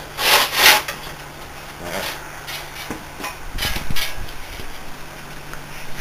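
Handling noises: two brief scrapes at the start, then light metal clinks and a few dull knocks in the middle, over a faint steady hum.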